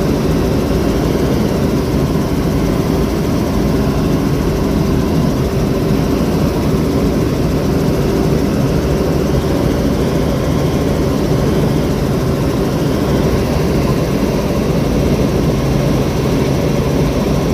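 Helicopter in flight heard from inside the cabin: loud, steady engine and rotor noise with a constant low hum.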